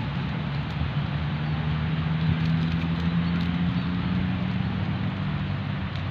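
Outdoor traffic noise: a steady low engine hum from passing vehicles, strongest in the middle, over a constant hiss of road and wind noise.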